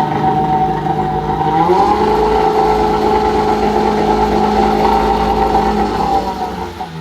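1995 Tohatsu M8B two-cylinder two-stroke outboard motor running; its pitch rises as it is throttled up a little under two seconds in, holds steady at the higher speed, then drops back toward idle near the end.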